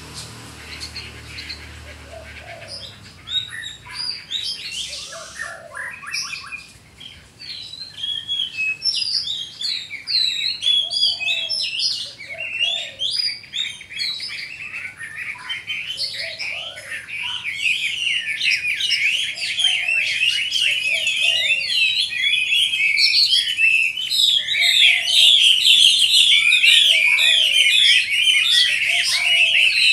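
Chinese hwamei (họa mi) singing a long, rapid, varied song of gliding whistled notes. It starts about three seconds in, runs together into continuous warbling from about halfway, and grows louder toward the end. A short low note repeats every couple of seconds underneath.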